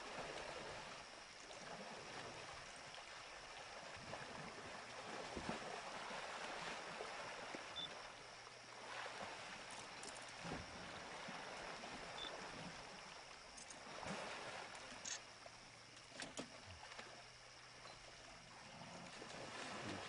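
African elephants swimming, water sloshing and splashing faintly, with a few brief louder splashes spread through the stretch.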